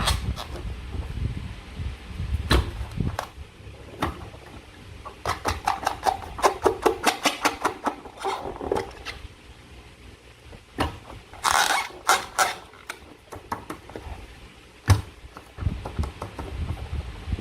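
Slime being squished and worked by hand: irregular wet clicks and squelches, with a quick run of them about a third of the way in and a longer sticky crackle near the middle.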